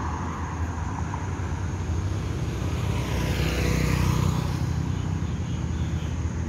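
A car passing on the road close by: its tyre and engine noise swells to a peak about four seconds in, then falls away over a steady traffic rumble.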